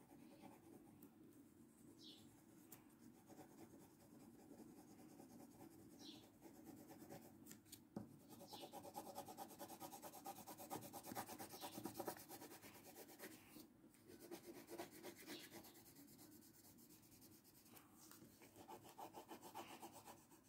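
Faint scratching of a yellow coloured pencil shaded back and forth across a colouring-book page, a little louder around the middle.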